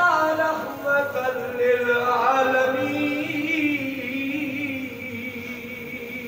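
A man's voice chanting in long, held notes that slowly bend in pitch, growing quieter toward the end.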